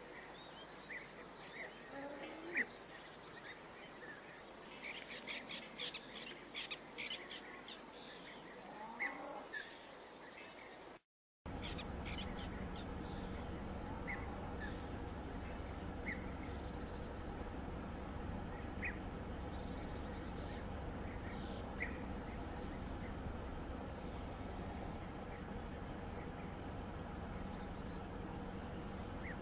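Outdoor night ambience with scattered short high chirps from insects and birds. About eleven seconds in the sound cuts out for a moment, then a steady low hum comes in under the same sparse chirps.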